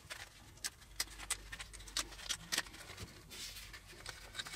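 A small stapled plastic parts bag crinkling and crackling as fingers pull it open: a string of sharp, irregular crackles, with a short rustling stretch a little past the middle.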